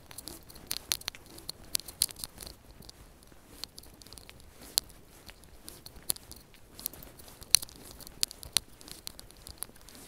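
Footsteps crunching on a gritty asphalt driveway: irregular sharp clicks and crackles, the loudest a little past halfway.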